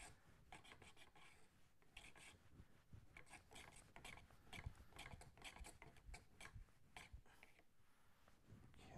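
Faint, quick scraping strokes, a few each second, as a hand-forged chisel held in a Sharp Skate honing jig is rubbed back and forth on a wet 1-micron sharpening stone, cutting off the burr after the bevel has been honed.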